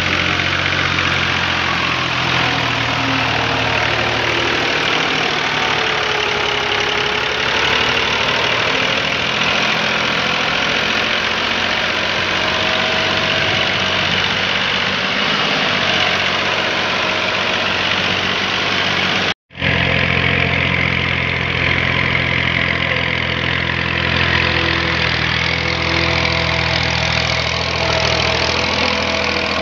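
Tractor diesel engine running steadily under load while hauling a loaded trolley. The sound cuts out completely for a moment about two-thirds of the way through.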